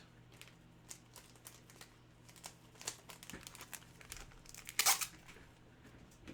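Plastic trading-card packaging crinkling as it is handled, a scatter of small crackles with one louder rustle about five seconds in.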